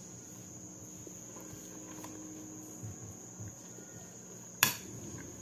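A metal fork clinks sharply once against a glass plate about four and a half seconds in, the loudest sound, over a steady high-pitched trill like a cricket's.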